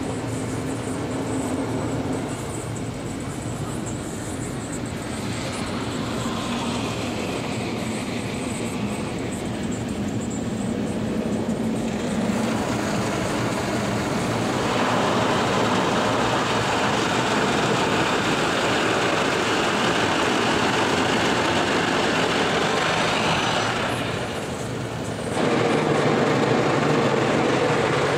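Automatic car wash heard from inside the car's cabin: a steady rush of water spray and wash machinery over the bodywork and glass. It grows louder and brighter about halfway through, drops off briefly near the end, then comes back loud.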